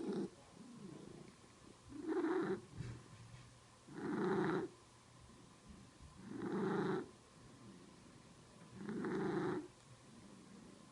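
Cat purring, with a loud raspy, gasping sound breaking through four times, about every two and a half seconds.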